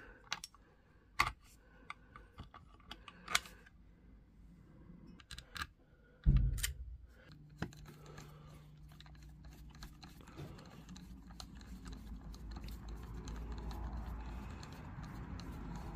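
Small parts of a laser level clicking and tapping as they are handled and fitted together by hand. There is one heavier knock about six seconds in, then a low rumbling handling noise that builds towards the end.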